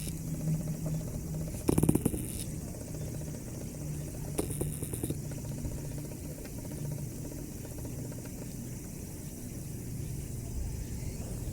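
A steady low engine-like hum, with two short bursts of noise, the louder about two seconds in and a smaller one about four and a half seconds in.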